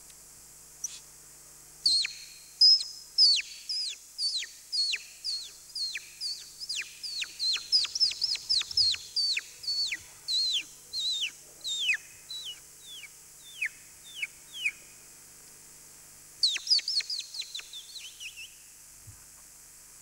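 A human vocal mimic imitating a baby chick: a long run of high, short peeps, each falling sharply in pitch, about two a second, then a quicker flurry of peeps near the end.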